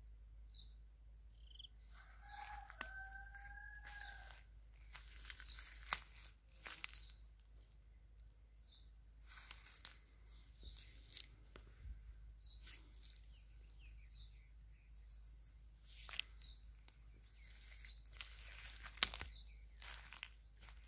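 A rooster crows once, about two seconds in, a held call lasting a second or two, over small birds chirping repeatedly throughout. Scattered knocks and rustles come and go, the loudest near the end.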